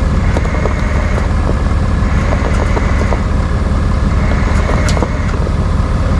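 Truck engine running steadily, a constant low drone with light clicks and rattles over it.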